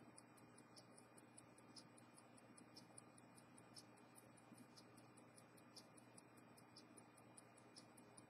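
Faint, steady ticking of a vintage Panerai 3646 wristwatch movement running, about five ticks a second, with a slightly stronger tick about once a second, over a low steady hum.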